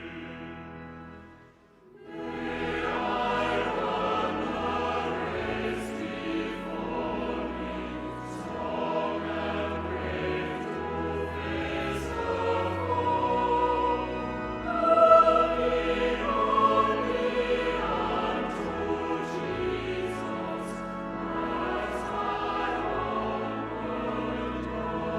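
A choir singing a slow sacred piece with accompaniment and held chords; about two seconds in, the music before it dies away to a brief near-silence before the singing begins.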